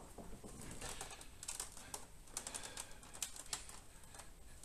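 Faint, irregular light clicks and taps of a monitor arm and monitor being handled and adjusted, several small knocks a second.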